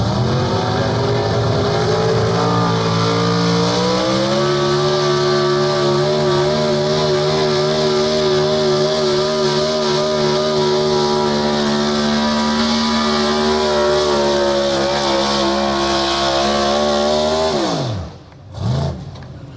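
Pro stock 4x4 pulling truck's engine, in a 1960s Ford pickup, at full throttle pulling the sled. The revs climb over the first few seconds and hold high and steady, then drop sharply as the driver lifts at the end of the pull, followed by one short rev blip.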